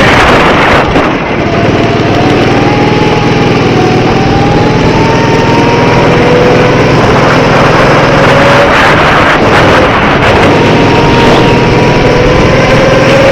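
Small go-kart engine running hard at speed, loud and steady, its pitch climbing slowly with brief dips as the throttle and speed change.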